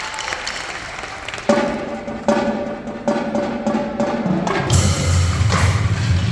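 Crowd applause dying away, then a marching percussion ensemble comes in with a run of accented pitched hits about every second. A loud, sustained low bass enters near the end.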